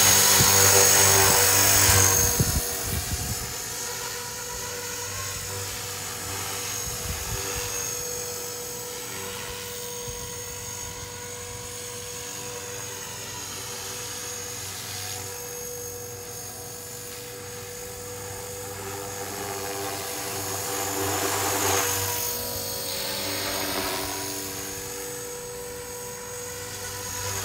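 Blade 330S electric RC helicopter with an X-Nova XTS brushless motor in flight. A steady rotor and motor whine is loud for about the first two seconds while it is close, then fainter, swelling and fading as it moves about. It is flown at moderate power while the brand-new motor is broken in.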